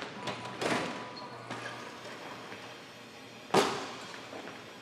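Basketball thuds echoing in a gym: one about half a second in and a louder one about three and a half seconds in, with lighter taps between.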